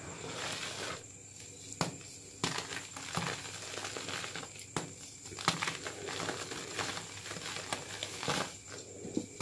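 Hands squeezing and crumbling plain gym chalk powder and chunks: an irregular powdery crunching and rustling, broken by several sharp cracks, the loudest about halfway through.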